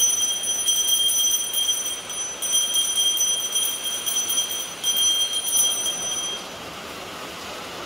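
Small brass puja handbell rung rapidly and continuously for the aarti, a steady bright ringing with brief breaks, stopping about six and a half seconds in.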